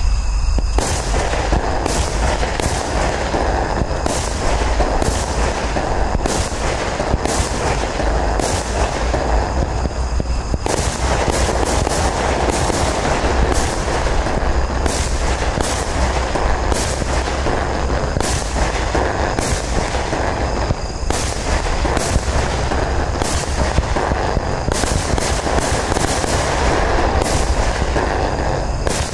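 Startrade Beatbox 2 16 mm firework battery firing rapidly: an unbroken stream of launches with sharp reports every fraction of a second, as shots with rising tails burst into gold and blinking effects.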